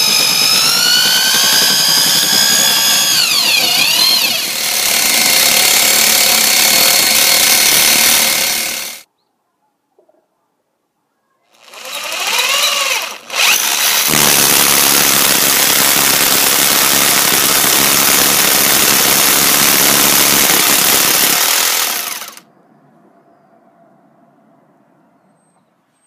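Bosch GBH 2-24 DFR rotary hammer driving a core bit through a wall. It runs in two long loud stretches with a break of about two seconds between them, each starting with the motor's whine gliding in pitch as the bit takes load. The second stretch stops about three-quarters of the way through, leaving only a faint low background sound.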